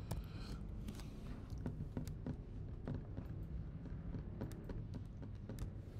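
Scattered light clicks of a computer keyboard and mouse, a few a second, over a low steady room hum.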